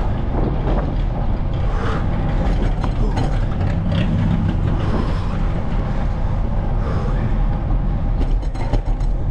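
Steady wind buffeting and road rumble on the microphone of a bicycle rolling along a street. Near the end comes a quick cluster of rattles and knocks as the bike goes over a speed bump.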